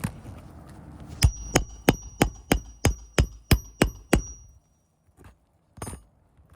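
A hammer driving a roofing nail through a shingle: about ten quick blows, roughly three a second, with a high metallic ring over most of them. A single lighter knock follows about a second and a half later.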